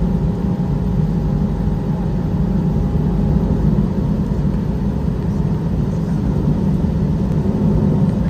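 Airbus A320 airliner's jet engines and cabin noise heard from inside the cabin while taxiing, a steady low rumble. A faint thin whine fades out about two seconds in.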